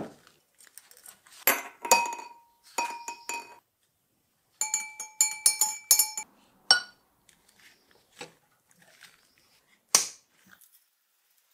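Small metal trigger parts clinking against glass: taps on a glass jar of nickel-plating solution, then a quick run of taps with a ringing note as a part is swished in a glass beaker of distilled water. A few single clinks follow, the last about ten seconds in.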